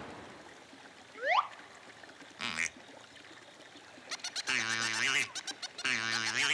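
Cartoon sound effects: a quick rising whistle about a second in and a short rustle, then clicks and two short, wobbling, duck-like vocal sounds from the animated characters near the end.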